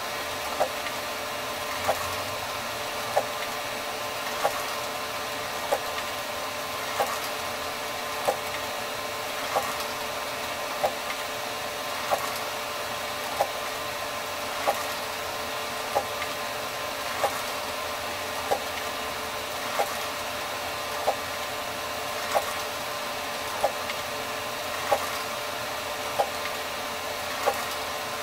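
ENCAD NovaJet 750 wide-format inkjet printer running a print job: a steady mechanical hum and whine, with a sharp click repeating evenly about every 1.3 seconds.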